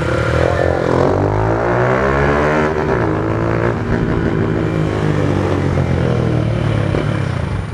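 Motorcycle engine running while riding, its pitch rising and then falling as it accelerates and eases off, between about one and four seconds in.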